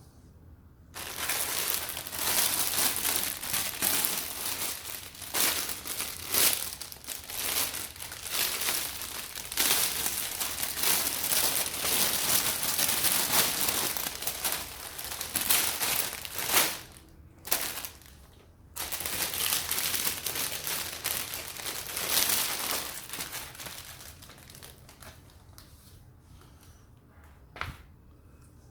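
Packaging being handled and opened, crinkling and rustling irregularly. It starts about a second in, stops briefly partway through, then fades out near the end.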